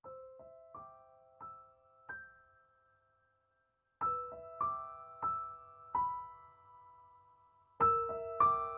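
Background music: a slow, gentle piano melody of single notes, each ringing and fading. It pauses for about a second around three seconds in, then resumes, louder near the end.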